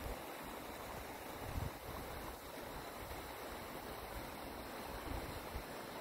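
Wind buffeting the microphone: irregular low thumps over a steady rushing hiss.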